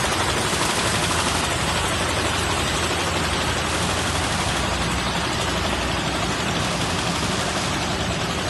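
High-speed automatic crash-lock bottom folder gluer running, with carton blanks feeding through on its belts: a steady, dense, rapid mechanical clatter.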